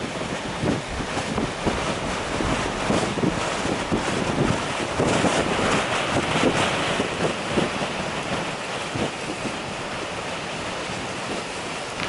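Gale-force northeast wind buffeting the microphone in irregular gusts over the steady rush of storm waves breaking on the shore.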